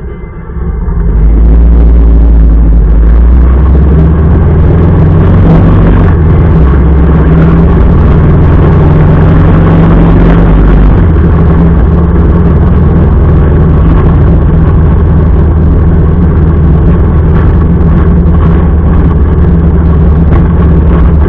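Motorcycle engine running steadily under way, with a constant rushing noise over it. It comes in loud about a second in.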